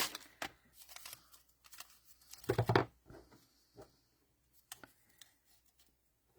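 Small handling noises of paper crafting: scattered light clicks and rustles as a glue dot is pulled from its roll and the ribbon bow is handled, with one louder rustle and bump about two and a half seconds in.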